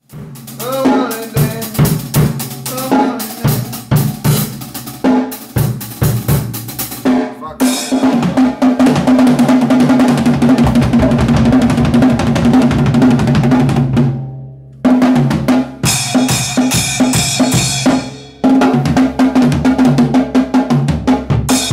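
DW drum kit played hard: fast fills of separate hits on snare, toms and bass drum, then steady playing under a wash of crashing cymbals, with two brief stops in the second half.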